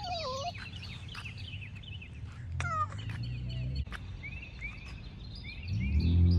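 Small birds chirping and calling, many short chirps over a low hum. Near the end a loud, low, steady drone with a fixed pitch comes in.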